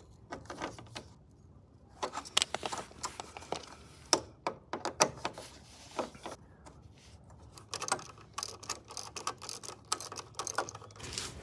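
Irregular small clicks and taps of a screwdriver and a small bolt being worked on a metal bracket, sparse at first and coming thick and fast near the end.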